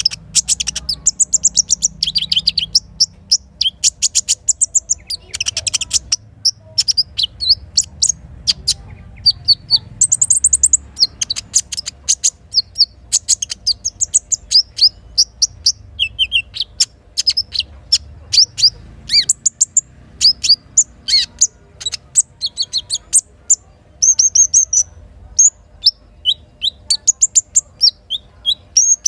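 Songbird chirping and twittering in quick strings of short, sharp, high notes, from a crimson sunbird (sogok ontong) lure recording.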